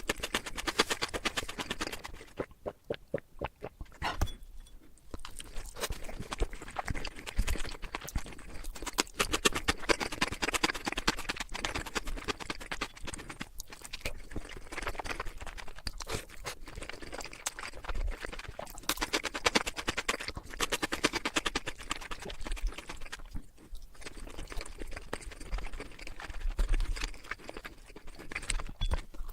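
Close-miked chewing of crunchy Korean chicken: a dense run of wet crunches and crackles in big bites, with short lulls about three and five seconds in and again past twenty seconds.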